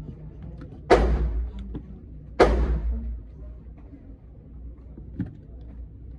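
Two single gunshots about a second and a half apart, each echoing briefly after the crack, then a faint knock near the end.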